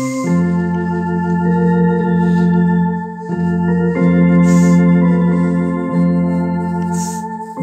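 A two-manual home electronic organ playing slow, sustained chords over a held bass note, the chord changing every one to two seconds.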